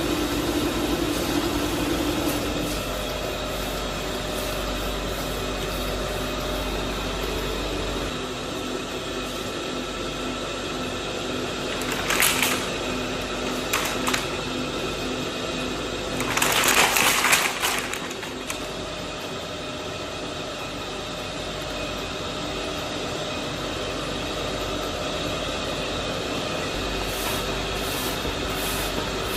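Pipe-factory machinery running with a steady hum and whine. Brief hissing bursts come about twelve and fourteen seconds in, and a longer, louder one comes a little later.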